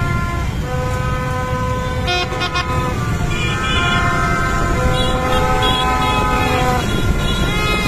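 Many horns honking at once in overlapping held tones, over the low rumble of a crowd of motorbike engines.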